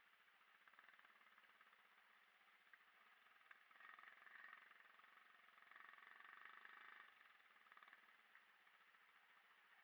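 Near silence with a faint motorcycle engine in the background, swelling twice in the middle.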